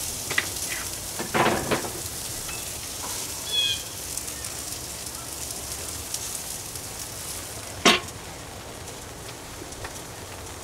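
Shish kebabs sizzling on a portable gas grill, with a few clatters from the skewers being lifted off early on and a short chirp about three and a half seconds in. About eight seconds in the grill lid shuts with a sharp clack, and the sizzle is muffled after it.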